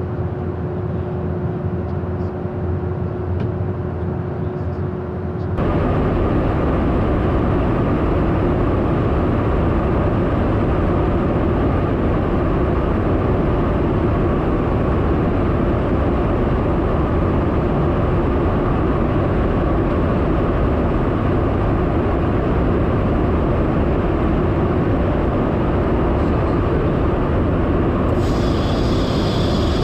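Steady in-flight noise inside a KC-135 Stratotanker's boom operator pod: engine drone and airflow with a faint steady hum. About five and a half seconds in it jumps abruptly to a louder, fuller rush of air and engine noise that holds steady.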